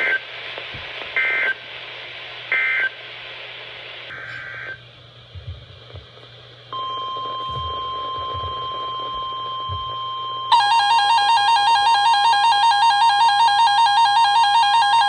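Three short screeching bursts of SAME data tones, the end-of-message code of a NOAA Weather Radio broadcast, then a steady weather radio warning alarm tone. About four seconds after that tone starts, a much louder pulsing electronic alert tone joins in, signalling a new severe weather warning.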